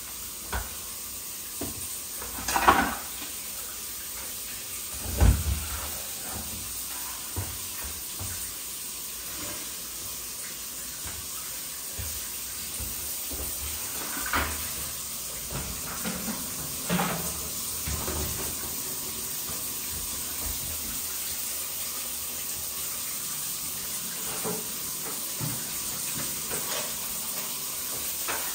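A steady hiss with a few sudden knocks. The two loudest come about three and five seconds in, and fainter ones follow later.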